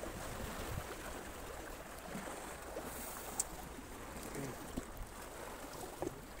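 Steady wash of water and wind with a few faint clicks and rustles of handling as a hook is worked out of a caught fish.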